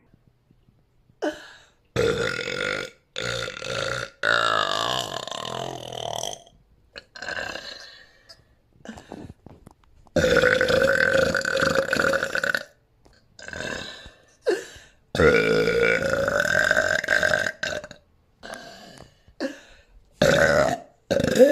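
A woman burping over and over: about ten belches, each starting and stopping abruptly with short silences between. Most last under a second, and a few are drawn out for two to three seconds.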